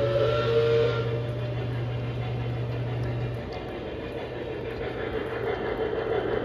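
Lionel Legacy O-gauge model train running on its track, a steady rumble of wheels on rail, with a brief signal blast from its onboard sound system fading out within the first second. A steady low hum drops away about three and a half seconds in.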